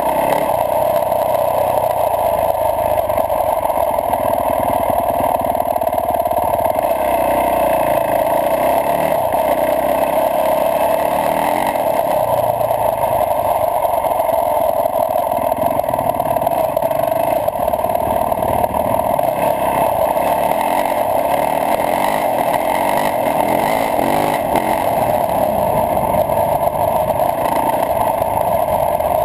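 Yamaha YZ450F four-stroke single-cylinder dirt bike engine running steadily under way, mixed with wind rush on the bike-mounted camera.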